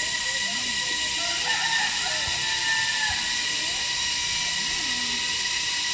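Loud, steady buzzing of cicadas: a constant hiss with high ringing tones. Faint voices sound underneath.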